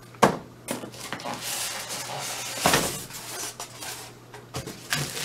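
Cardboard and plastic packing being pulled out of a printer box and handled: crinkling and rustling, with a few sharp knocks and clatters. The loudest rustle comes a little before the middle, and small clicks follow near the end.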